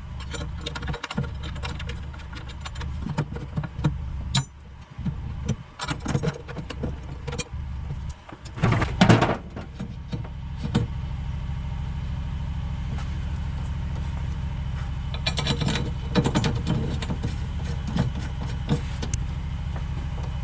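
Metal clinks, knocks and tool clicks from a battery tray and its brackets being positioned and their nuts snugged, with one louder clatter near the middle. From about halfway on, a steady low hum runs underneath.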